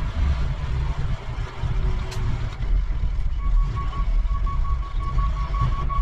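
International 7500 plow truck's engine running as the truck is moved. A backup alarm starts about three and a half seconds in, giving steady repeating beeps as it reverses.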